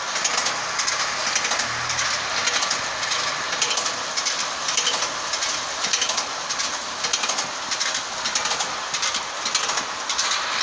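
Steady clattering and rattling of bagged banana bunches travelling on trolleys along an overhead steel cableway, with the rustle of the plastic bunch covers.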